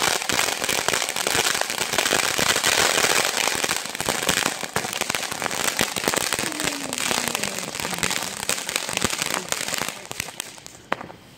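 A consumer ground firework going off: dense crackling and popping from a spray of sparks, with shots bursting overhead, thinning out near the end.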